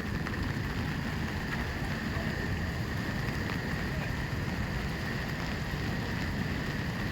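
Steady roar of a large waterfall, an even rush of falling water without a break.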